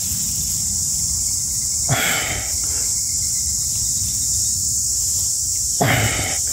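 Steady high-pitched shrill of insects in the surrounding field. Two brief louder noises break in, about two seconds in and near the end.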